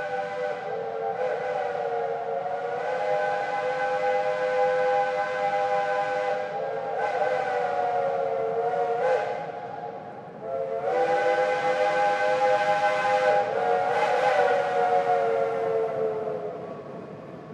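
Steam locomotive chime whistles sounding long blasts, several notes at once, with the chord shifting in pitch. There are three long blasts with short breaks, the last fading out near the end.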